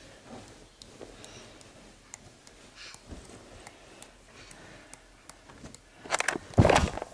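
Faint scattered ticks and soft rustles, then about a second of loud rustling and bumping near the end.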